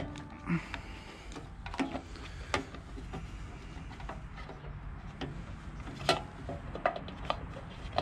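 Scattered light clicks and knocks of hand work on a small engine, parts and a hose being handled and pushed into place, over a low steady hum.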